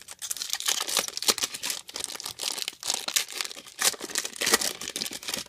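Foil wrapper of a trading-card pack being torn open and crumpled by hand: dense, irregular crinkling.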